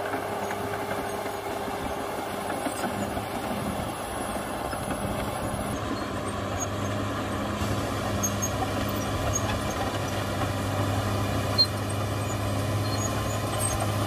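Caterpillar D6R XL bulldozer's diesel engine running steadily under load as the dozer pushes soil with its blade, growing gradually louder as it comes closer. A single short, sharp knock sounds about two-thirds of the way in.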